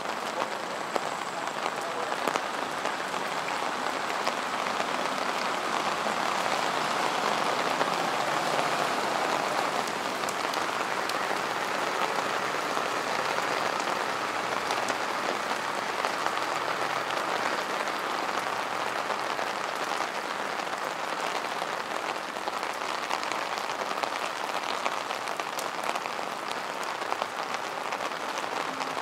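Steady rain falling, a dense even patter of drops that keeps up without a break.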